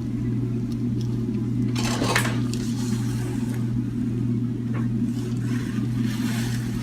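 Steady low hum under the handling noises of a chiropractic adjustment: a rustling scrape about two seconds in, a softer one near the end, and a faint click or two.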